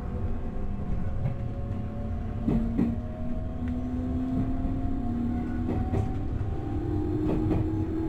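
Electric commuter train heard from the driver's cab, running with a low rumble while its traction motors whine at a pitch that rises steadily as it picks up speed. Three times, its wheels click in quick pairs over rail joints.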